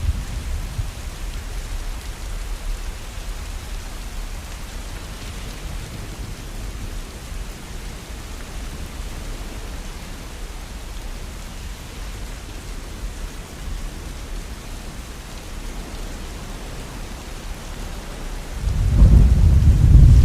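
Steady rain with a low rumble of thunder that dies away over the first couple of seconds. Near the end a louder roll of thunder breaks in suddenly and keeps rumbling.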